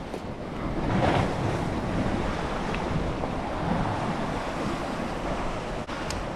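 Steady wind buffeting the microphone over the wash of surf, swelling slightly about a second in.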